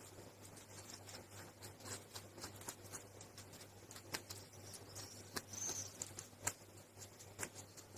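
Young white rabbit chewing a slice of watermelon: a quick, irregular run of faint crunchy bite-and-chew clicks.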